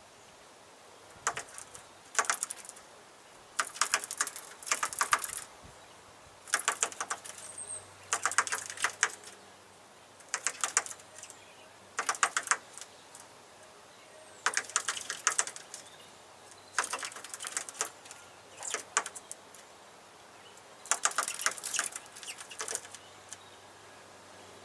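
A small bird repeatedly pecking at its reflection in a Dodge pickup's front grille: about a dozen bursts of rapid sharp taps, each under a second long, coming every second or two.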